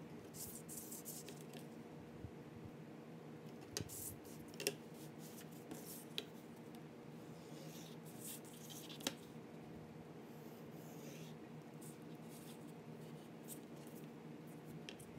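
Desk work on paper: a steel ruler set down and shifted on a sheet over a cutting mat, the paper sliding, and a pencil scratching short strokes along the ruler, with a few sharp taps. A low steady hum runs underneath.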